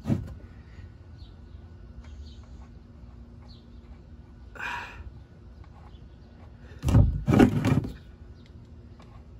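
Quiet working sounds under a pickup truck as the oil pan drain plug is turned by hand, with faint bird chirps in the background. A short rustle comes about halfway through, and a louder brief vocal sound, a grunt or exhalation, comes near the end.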